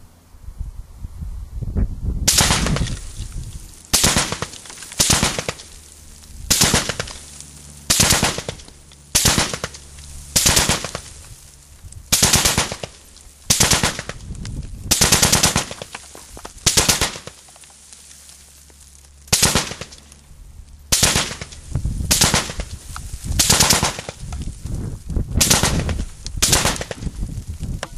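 Russian Degtyaryov DPM light machine gun, chambered in 7.62×54mmR, firing short bursts of a few rounds each, about twenty bursts roughly a second or so apart, starting about two seconds in.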